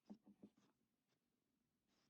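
Near silence with three faint, soft knocks in quick succession in the first half second, typical of handling items during an unboxing.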